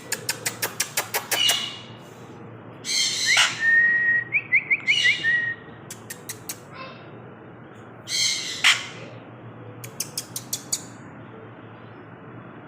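Pet parrot vocalizing: runs of rapid sharp clicks, several harsh squawking calls, and a steady whistle broken by short rising chirps.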